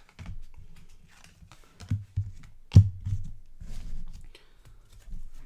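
Trading cards being handled and flipped through: light rustling and small clicks, with one sharper click a little past the middle.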